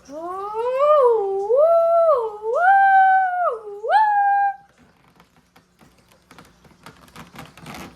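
A high, wordless voice sliding up and wavering between about four held notes for roughly four and a half seconds, stopping abruptly. Faint rustling and clicks of handling follow.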